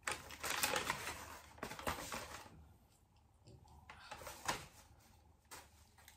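Paper food wrapping rustling and crinkling as it is handled, densest in the first two seconds, followed by a few sharp clicks and taps.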